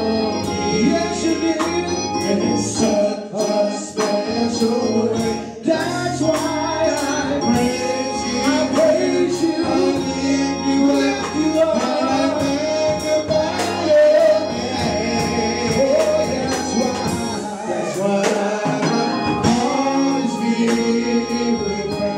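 Gospel song: a man sings into a microphone over organ and percussion.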